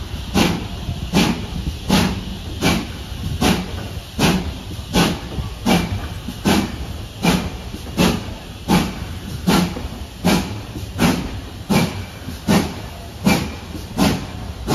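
Steam locomotive working slowly, its exhaust beats coming as evenly spaced sharp chuffs about four every three seconds over a steady low rumble, heard from a carriage window.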